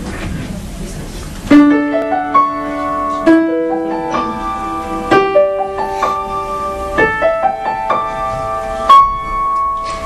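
Piano playing a slow introduction. It comes in about a second and a half in, after a little room noise, with notes and chords struck roughly once a second and left to ring.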